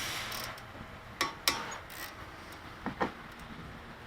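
A 12 mm hand tool clinking on the brake caliper's steel nuts as they are broken loose: a few sharp metallic clicks, two close together about a second in and two more near three seconds.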